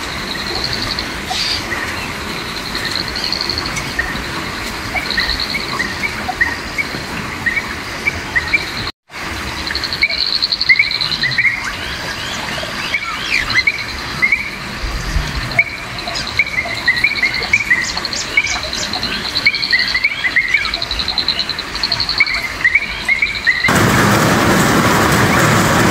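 Wild birds chirping in short repeated calls over a high, steady pulsing trill. About two seconds before the end this cuts to the even hiss of light, drizzly rain.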